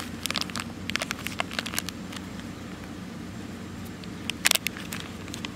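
Plastic chilli-powder packet crinkling as it is squeezed and tapped out over a metal bowl of dry flour, with light rustles of fingers in the powder. Scattered crackles come in the first two seconds, and a sharper crinkle comes about four and a half seconds in.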